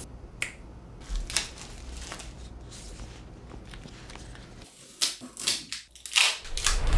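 Unboxing rustle: packing tape being peeled off and plastic wrap crinkling. There are scattered short rips and rustles, which grow louder about five seconds in.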